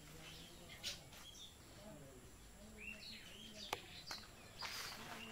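Quiet outdoor background with birds chirping now and then, a faint low voice-like drone, and a few light clicks. A brief rustle comes near the end.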